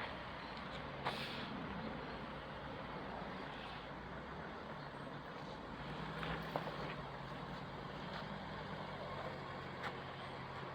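Mercedes G-Class Wolf (G461) engine running at low revs as the vehicle drives off, with a slight rise in engine pitch about six seconds in. A few short knocks or clicks are heard along the way.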